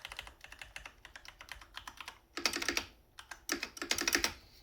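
Mechanical keyboard being typed on: a run of quick keystrokes, then two louder, denser flurries of key presses, one past halfway and one near the end.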